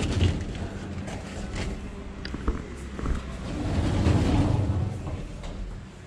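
Low rumbling handling noise on a handheld camera's microphone, swelling near the start and again about four seconds in, with a single sharp click about two and a half seconds in.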